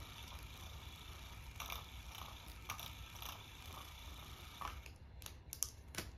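Battery-powered electric cat teaser toy running: its small motor and gears make a steady mechanical whir with scattered clicks as the ribbon wand swings around. The whir stops about five seconds in, and a few sharp clicks follow.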